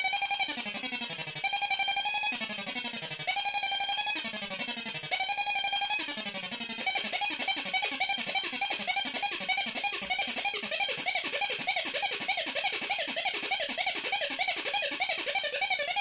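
MFOS Weird Sound Generator DIY synth circuit, fed through a Deep Blue delay, making warbling electronic tones. For about the first seven seconds a falling pitch sweep repeats roughly every second and a half. After that the sound changes to a faster, denser wobble that runs on steadily.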